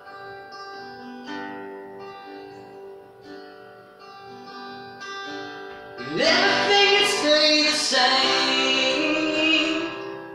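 Acoustic guitar played slowly, its notes ringing one after another. About six seconds in, a man's singing voice comes in louder, sliding up into long held notes over the guitar.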